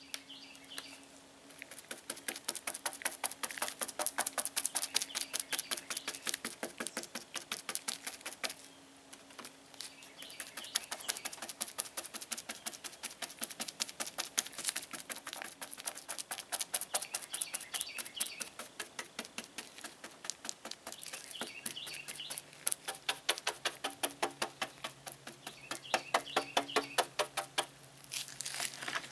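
A resin-loaded brush dabbing fiberglass mat onto the car roof, making a rapid run of wet tapping strokes, several a second. The tapping pauses briefly about a third of the way through and again about two-thirds of the way through.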